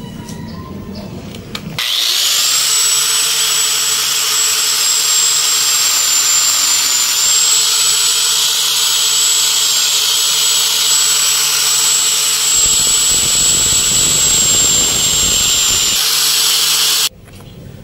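Electric angle grinder fitted with a sanding/buffing disc running at speed, a steady loud noise with a high whine, used to buff the small engine's piston smooth. It starts about two seconds in and cuts off suddenly near the end.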